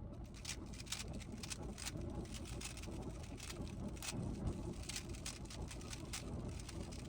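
Rubik's cube layers being turned rapidly by hand: an irregular patter of plastic clicks, several a second, as the moves of a blindfolded solve are carried out, over a low steady background rumble.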